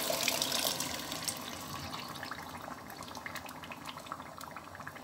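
Thick blended tomato purée being poured from a bowl into a hot pot of browned minced beef and onions: a wet, gushing pour with small crackles from the hot pan, dying down gradually as the pour slows.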